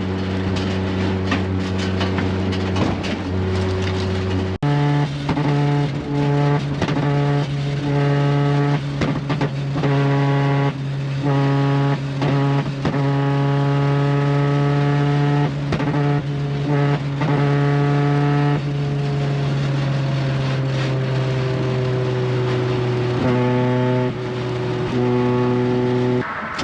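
Honda Civic hatchback's four-cylinder engine droning at steady cruise. Its pitch jumps up about five seconds in and slides down slowly in the last several seconds.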